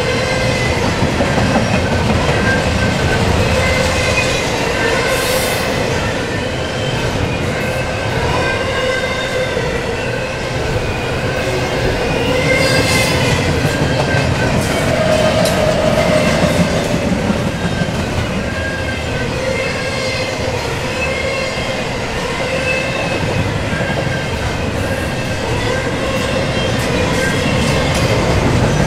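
Double-stack intermodal container cars rolling past close by: a steady rumble and clatter of steel wheels on the rails, with wavering high whines and squeals from the wheels.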